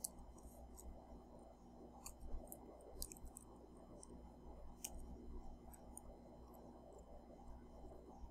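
Faint, irregular clicks of computer keys being typed over a low steady hum.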